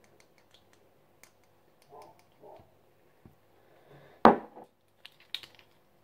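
Kitchen utensils being handled: light clicks and taps, with one sharp knock a little past four seconds in.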